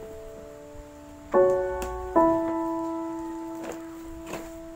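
Slow piano music: a chord struck about a second and a half in and another soon after, each left to ring and fade.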